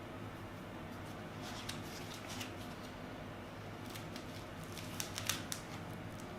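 Faint handling noise as a Y-strap is set up: light scattered clicks and rustles, with a small cluster of sharper ticks about five seconds in, over a low steady room hum.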